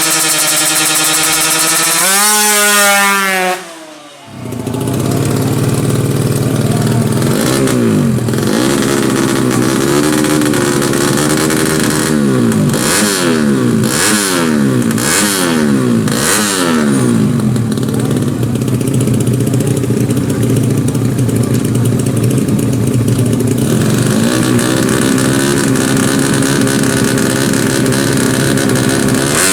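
Four-stroke underbone drag-racing motorcycle engines revving hard. One holds a high note, climbs and cuts off about four seconds in. Another then runs with a string of quick rev blips, each rising and falling, through the middle, and settles to a steadier note.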